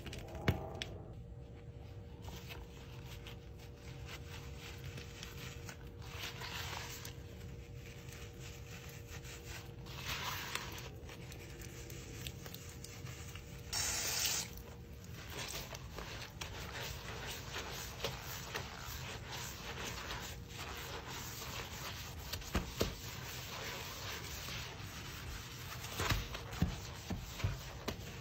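Sponge scrubbing a bathroom sink basin coated with cleaning powder: a steady gritty rubbing with scattered knocks. About halfway, the tap runs for about a second.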